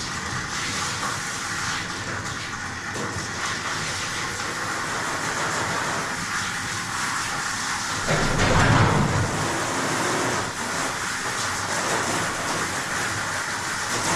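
Dog-wash station spray nozzle running, a steady hiss of water spraying onto a dog's coat, with a louder low rumbling surge about eight seconds in.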